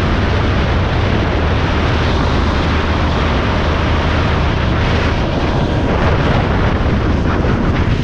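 Vehicle travelling at highway speed: steady rush of wind and road noise over a low, steady hum.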